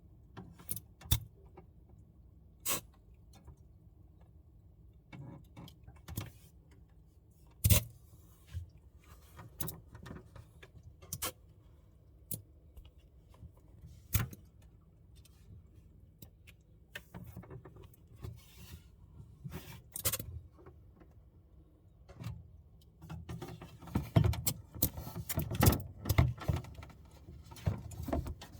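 Samsung Bespoke refrigerator running with a low steady hum, broken by irregular sharp clicks and ticks, the noise it is being recorded for. Near the end the clicks come thicker and louder.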